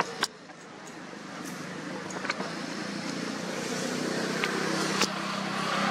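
Steady low engine hum, growing gradually louder as a motor vehicle approaches, with a sharp click just after the start and a few light ticks.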